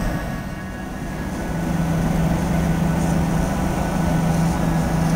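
Steady cabin noise of a passenger aircraft in flight: engine drone with a strong low hum and the rush of air over the fuselage. It dips slightly about a second in, then holds steady.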